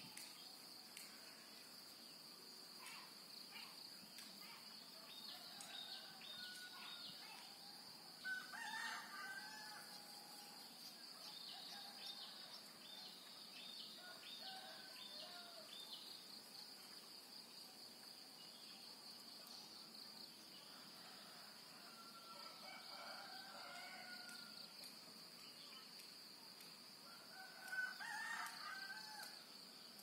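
Rooster crowing three times, about a third of the way in, past the middle and near the end, over a steady high-pitched insect drone and scattered chirps of small birds. All of it is faint.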